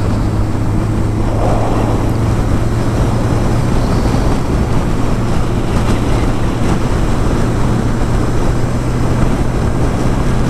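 Kawasaki Ninja motorcycle cruising at steady highway speed. Its engine drones at an even pitch under heavy wind rush on the microphone.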